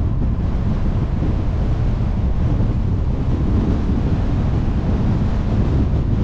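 Steady low rumble of wind buffeting the action camera's microphone, mixed with tyre and road noise from the car it rides on as it drives along.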